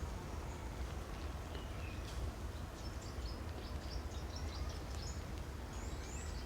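Birds chirping in many short, high calls over a steady low rumble; the calls grow busier about halfway through, with a couple of quick gliding calls near the end.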